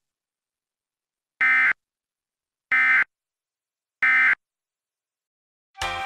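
Emergency Alert System end-of-message data tones: three short, identical buzzy digital bursts about 1.3 seconds apart, marking the end of the alert. Music starts just at the end.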